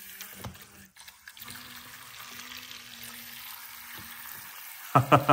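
Two battery-powered Zuru Robo Boat toy boats running in a plastic tub, their propellers churning the water in a steady fizzing splash, with a faint steady motor hum.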